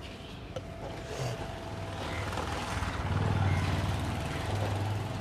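Motorcycle engine running as it rides past, growing louder to a peak a little past the middle and then easing off slightly.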